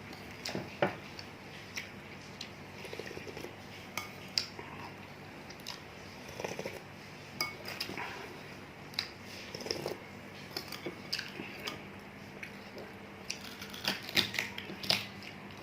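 Spoon clinking against a bowl with chewing while eating a bowl of bakso (meatball soup); scattered sharp clicks, a quick cluster of them near the end.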